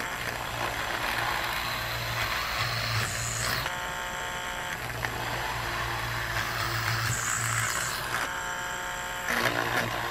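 Homemade mini electric drill, a small DC motor in a plastic tube driving a fine bit through a brass chuck, drilling into a block of wood. A steady motor whine turns rough and noisy while the bit cuts, twice for a few seconds with a short clean free-running whine between, then a clatter near the end as the bit bites again.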